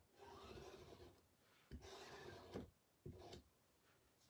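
Small squeegee scraping chalk paste across a silkscreen stencil in three faint strokes, the last one short; the paste glides smoothly over the mesh.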